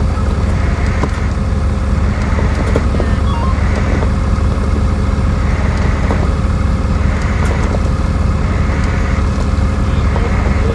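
Truck engine running steadily with a deep, even drone.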